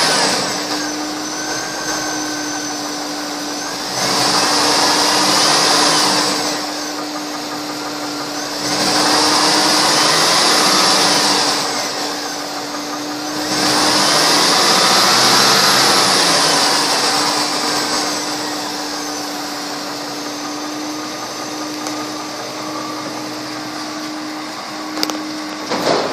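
2005 Cadillac Escalade ESV's Vortec 6000 6.0-litre V8 idling and revved up three times, each rev lasting a few seconds, rising and falling back to idle. A steady hum runs underneath.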